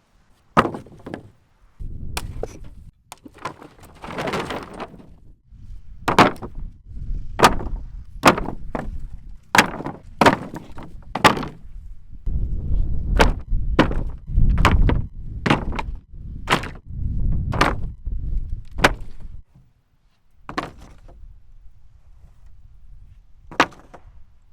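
A series of sharp knocks and thunks at irregular intervals, in places about one a second, with a low rumble underneath through the middle stretch and a brief hiss a few seconds in.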